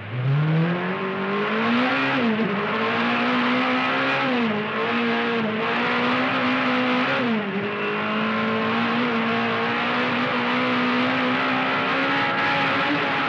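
Peugeot 405 Turbo 16 rally car's turbocharged four-cylinder engine at full throttle, heard from inside the cockpit. The pitch climbs, dips briefly about two, four and a half and seven seconds in, then holds high and steady.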